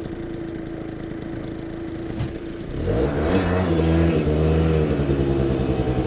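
Motor scooter engine running steadily, then revving up about three seconds in as the scooter pulls away and rides on at an even pace. A short click comes just before the engine picks up.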